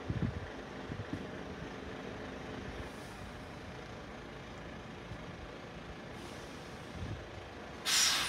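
Road traffic at a level crossing: a few low thumps in the first second over a steady low rumble, then a short, sharp hiss of air near the end, like a truck's air brakes releasing.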